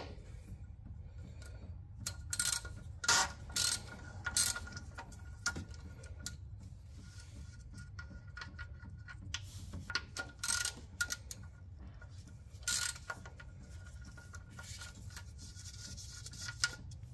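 Scattered clicks and knocks of tools and car parts being handled, with a steady low hum and a faint high tone underneath.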